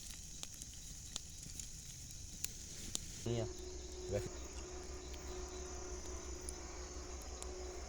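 Crickets and other night insects chirring steadily, with scattered faint clicks. A brief voice-like sound comes about three seconds in, followed by a faint steady low hum.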